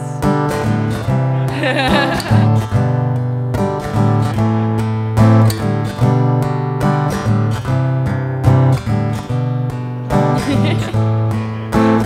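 Acoustic guitar strummed in a steady rhythm, an instrumental passage between sung verses.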